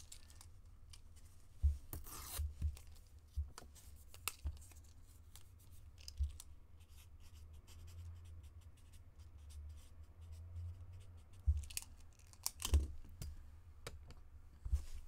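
Quiet scattered clicks, scratches and rustles of hands handling trading cards, plastic card holders and packaging, over a low steady hum.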